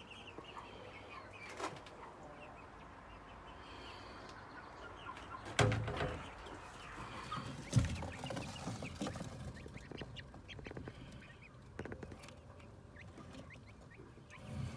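Young chicks cheeping in short high calls in a brooder box, with two loud thumps about five and a half and eight seconds in.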